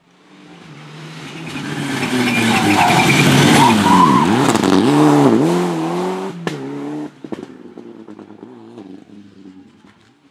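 Rally car passing at speed: the engine grows louder as it approaches, its revs dip and climb several times while it is closest, then it drops away sharply and fades into the distance.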